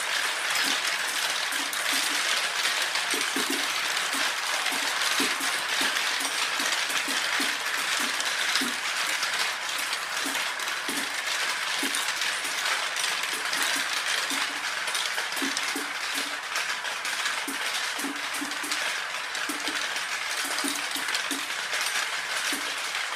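Marbles rolling and clattering through a large plastic marble run: a steady stream of clicks and rattles as they roll along translucent plastic tracks, spirals and tubes.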